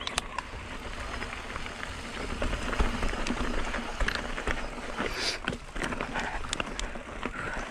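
Mountain bike and rider going over loose rock and gravel: steady crunching with many scattered clicks and rattles, over a constant low rumble.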